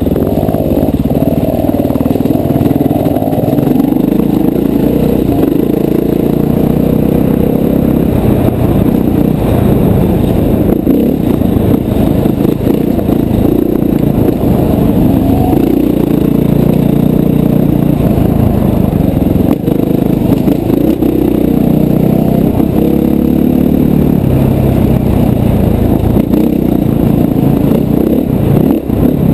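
Dirt bike engine heard from the rider's helmet camera while riding single track, its pitch rising and falling as the throttle is opened and closed, with occasional clatter from the trail.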